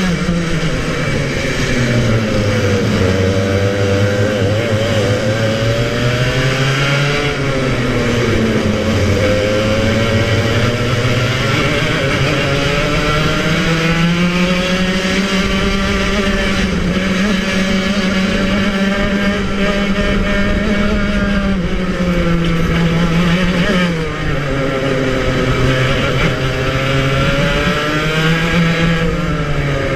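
Club100 kart's 115cc TKM two-stroke engine at racing speed, heard onboard. The revs fall right at the start and again about three-quarters of the way through, then climb back up, holding high through a long middle stretch.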